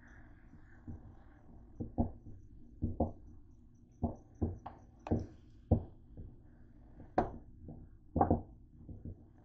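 Black plastic spoon knocking and scraping against a nonstick frying pan while pork and carrots are stirred: about fifteen irregular taps and clunks, with a faint steady hum underneath.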